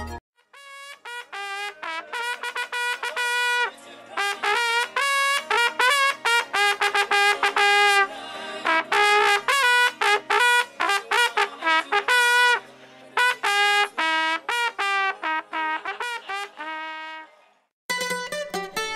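A solo horn with a bright, brassy tone playing a melody of short separate notes, with a few brief pauses. Near the end it gives way to different, fuller music.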